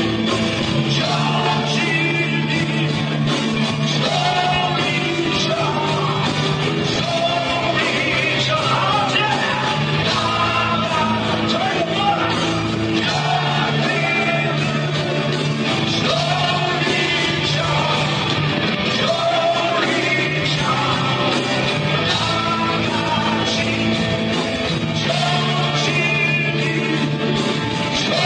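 Live heavy metal band playing loud and steady, a voice singing and yelling over the bass and drums.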